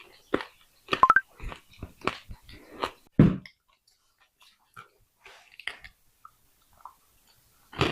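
Close-up crunching and chewing of clay pot pieces being eaten: a quick run of sharp bites and crunches, the loudest about three seconds in. After that come only a few faint ticks, then the crunching starts again near the end.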